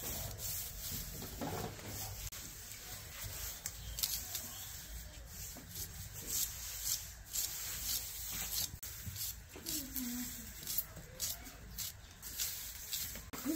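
Small irregular clicks and taps over a low background rumble: a straw fire crackling in a clay stove, then a knife cutting shallots. A short, faint falling call comes about ten seconds in.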